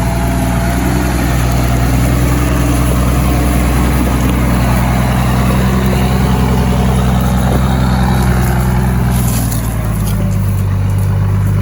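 Toyota Land Cruiser's engine running steadily and loud, working in four-wheel drive on an off-road trail, its pitch shifting slightly near the end.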